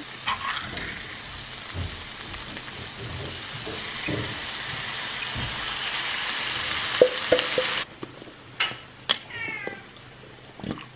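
Food sizzling in a hot frying pan, the hiss building as a tin of chopped tomatoes is torn open by its ring-pull and tipped in. The sizzle cuts off suddenly about eight seconds in, followed by a few clicks and short squeaks.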